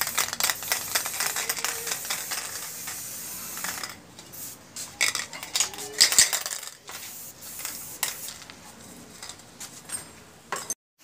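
Light metallic clinking and rattling with a hiss, dense for about the first four seconds, then sparser separate clicks.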